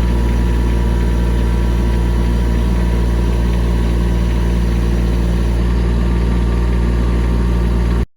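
Bobcat E20 mini excavator's diesel engine running steadily with a deep hum, cutting off abruptly near the end.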